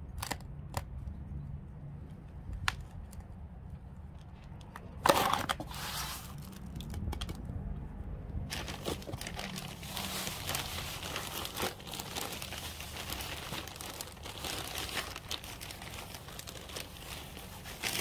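Plastic bag of potting soil crinkling and rustling as it is handled and the soil is poured out. A few light clicks and a sharp knock come first; from about halfway through the rustle is continuous.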